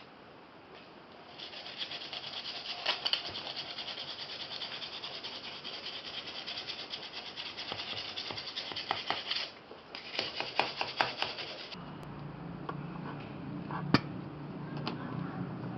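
Steady abrasive rubbing, like sanding or filing, starting about a second and a half in. It breaks off briefly near the middle, resumes for a couple of seconds, then gives way to a low hum with a few sharp clicks.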